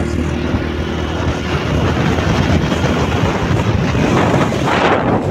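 Wind buffeting the microphone on a moving motorbike, a steady rush over the low hum of the engine.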